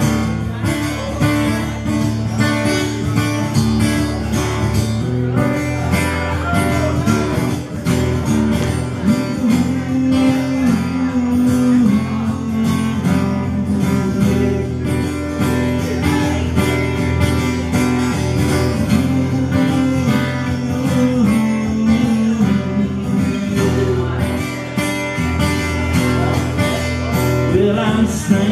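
Acoustic guitar strummed steadily in an instrumental passage between sung verses of a live song.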